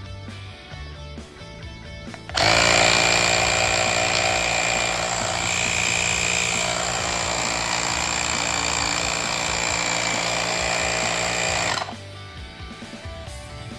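Woscher i6 cordless tyre inflator's small piston compressor running: a loud, steady mechanical buzz that starts abruptly a couple of seconds in, runs for about nine seconds and cuts off suddenly.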